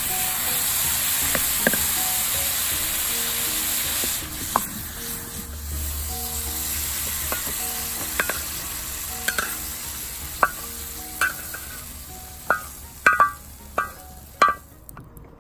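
Prawns and vegetables sizzling in a hot frying pan while a metal spatula stirs them, the spatula clicking against the pan. The sizzle fades after about four seconds, and then the spatula scrapes and knocks on the pan as the food is pushed out onto a plate, with a quick run of sharp clicks near the end.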